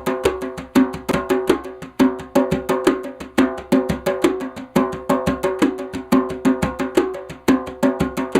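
African drum played in a fast, steady rhythm of several sharp strokes a second, each stroke ringing with a clear pitched tone.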